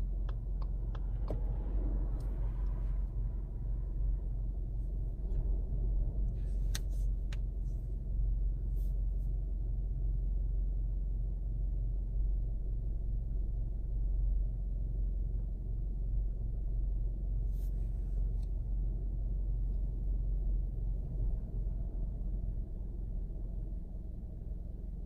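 Parked car's engine idling, a steady low rumble heard from inside the cabin. The turn signal ticks evenly for about the first second, and a few faint clicks come later.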